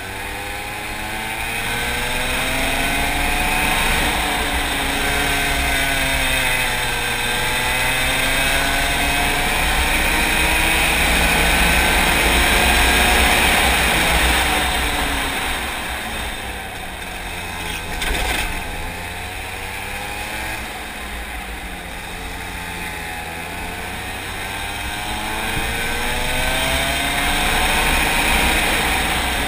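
Racing kart engine heard from onboard, its pitch climbing as the kart accelerates and falling as it slows for corners, several times over. A short knock about eighteen seconds in.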